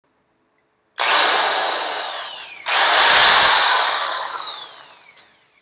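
Electric drill with a 3/32 inch bit drilling a pilot hole, run in two bursts about a second and a half each, the motor whine falling in pitch as it spins down after each trigger pull.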